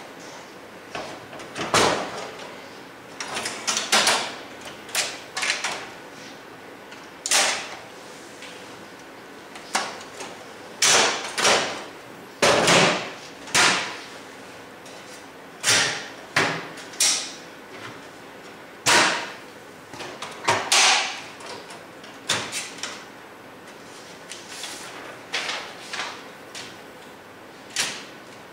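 Plastic covers, doors and latches of a Kyocera KM-C2525E colour copier and its document finisher being opened and handled to clear a paper jam: a long, irregular series of sharp clicks, clacks and knocks.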